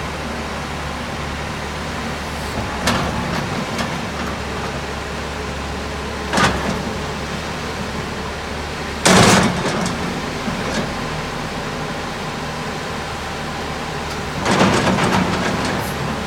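JCB JS205LC excavator's diesel engine running steadily at idle, with several brief rushing, clattering bursts over it; the loudest comes about nine seconds in, and a longer one near the end.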